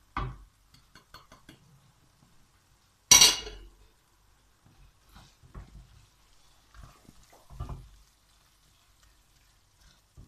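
Wooden spatula stirring chopped vegetables and spices in a non-stick frying pan, with scrapes and knocks against the pan. One sharp, loud clatter comes about three seconds in.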